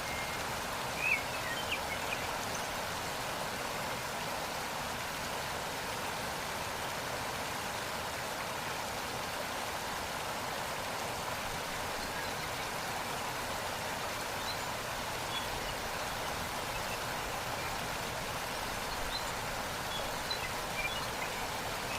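Waterfall: water rushing and splashing steadily over rocks, with a few brief bird chirps about a second in and faintly near the end.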